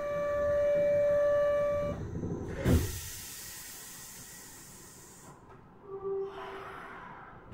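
Door buzzer of a Kyoto Municipal Subway 20 series train, a steady buzz that stops about two seconds in, signalling the doors closing. A thud follows as the doors shut, then a hiss of air for about two and a half seconds.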